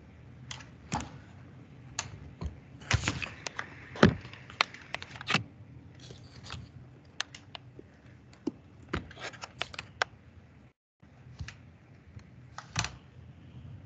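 Irregular keystrokes and taps on a computer keyboard, a few loud ones among quieter clicks. Near the end the sound cuts out completely for a moment.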